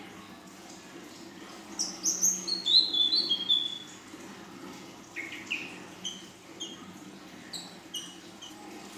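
Young female ashy drongo singing. It gives a quick run of short, sharp notes that step down in pitch about two seconds in, then more scattered short chirps.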